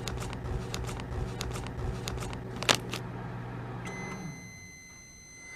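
Microwave oven running with a steady hum and a few clicks, then shutting down as one long beep sounds near the end, signalling that the heating time is up.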